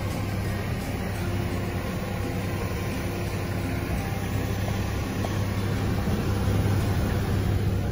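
Hino Profia heavy truck's diesel engine idling steadily, a low even drone.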